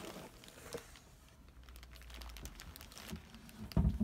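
Cardboard shipping box being handled and brought up onto a table: scattered light taps and rustles, then a dull thump near the end as it is set down.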